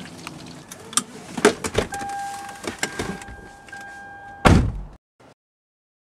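Clicks and rattles of a car seat-belt buckle and door latch, then the car's steady warning tone while the door stands open. A car door slams shut, the loudest sound, about four and a half seconds in.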